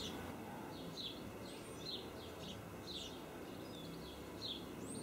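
Garden birds chirping faintly: short high chirps about twice a second, with a thin high whistle twice, over quiet outdoor background.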